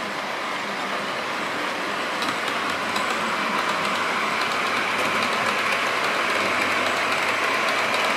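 Model railway diesel multiple unit running along the track toward the camera: a steady rushing running noise that grows louder as it approaches, with faint clicks over the track from about two seconds in.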